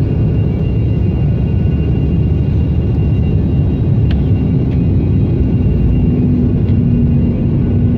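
Sukhoi Superjet 100's SaM146 turbofan engines: a loud, steady rumble with a steady hum running through it.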